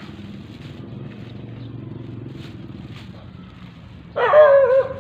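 A dog barks once, loud and with a wavering pitch, near the end, over a steady low background rumble.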